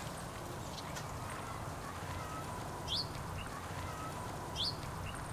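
Rural outdoor ambience: a steady low background hum with a bird giving a short rising chirp twice, about three seconds in and again near the end, and fainter bird notes between.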